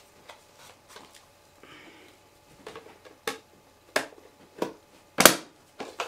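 Hard plastic clicks and knocks from handling a small robot vacuum and its clear plastic dust bin: a few sharp taps in the second half, the loudest a little after five seconds in, as the robot is lifted and turned over.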